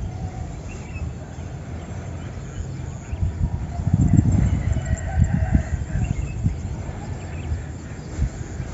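A rooster crowing, starting about four seconds in, over a steady low rumble with thumps.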